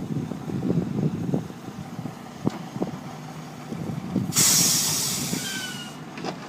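Heavy machine running with a low rumble and scattered clicks, then a sudden loud hiss of released air a little over four seconds in, fading away over about two seconds.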